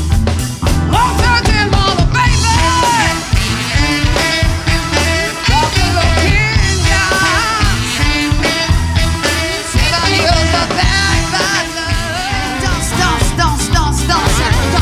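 Funk-disco band playing live, with a funky bass line and a steady dance beat under a melodic lead line.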